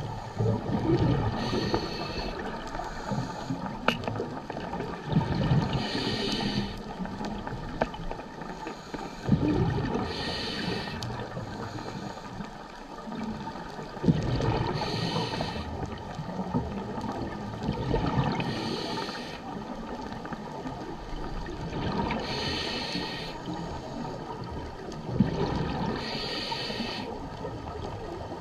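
Scuba diver breathing through a regulator, heard underwater: a burst of exhaled bubbles comes about every four seconds over a steady low underwater rumble.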